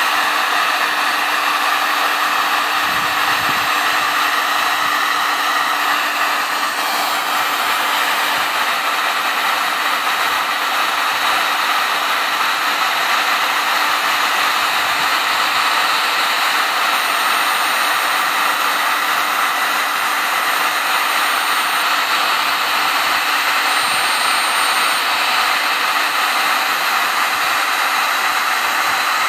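Handheld electric heat gun running steadily, its fan blowing a constant rush of hot air with no change in pitch or level.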